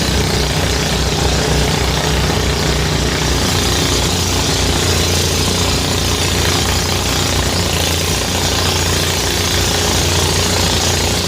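Motorised rice threshing machine running steadily, its engine and threshing drum making a loud, even mechanical noise with a rapid low pulsing.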